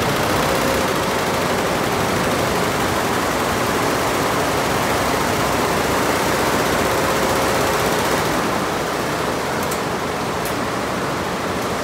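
Many Lejia multi-head computerized embroidery machines stitching at once: a dense, steady mechanical rattle of needle heads, a little quieter after about eight seconds.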